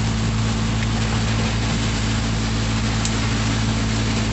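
Steady engine drone heard inside a moving vehicle's cabin, under a constant hiss of heavy rain and tyres on a wet road.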